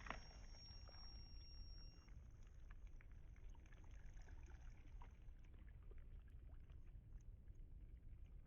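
Near silence: a faint low background rumble with a few faint ticks.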